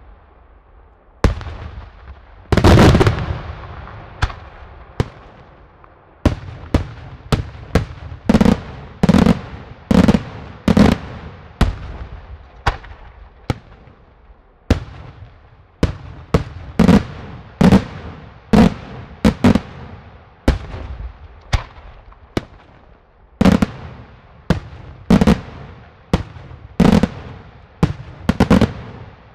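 Daytime aerial fireworks shells bursting in an irregular series of sharp bangs, each trailing off briefly. The bangs are sparse at first, with the loudest about three seconds in, then come quickly, about one or two a second.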